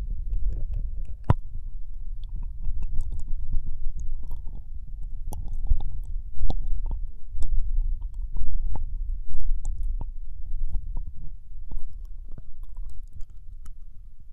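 Binaural ASMR ear licking on the right ear of the microphone only: many wet, sharp mouth clicks and smacks, irregular and close, over a steady low rumble.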